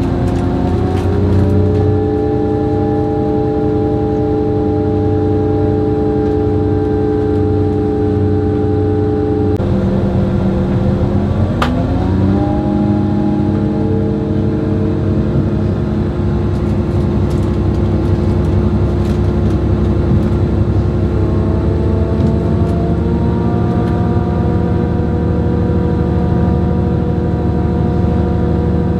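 Diesel railcar engine running under power, heard from inside the passenger compartment. Its pitch drops suddenly about ten seconds in, then climbs again, and rises once more near the end; a single sharp click comes about twelve seconds in.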